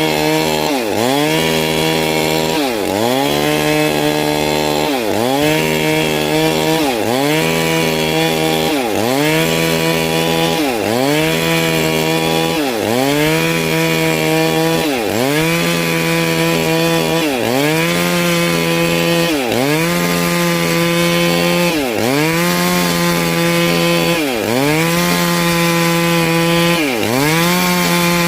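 Stihl MS 382 two-stroke chainsaw running hard while cutting wood. The engine pitch dips briefly and climbs back about every two seconds, in an even rhythm.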